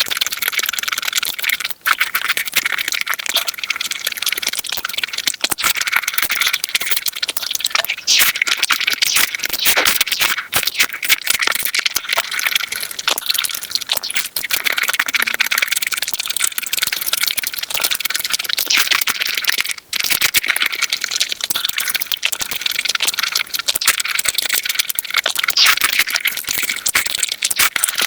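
Close-miked eating sounds played back at five times speed: chewing and crunching compressed into a dense, rapid crackle of clicks, with two brief breaks.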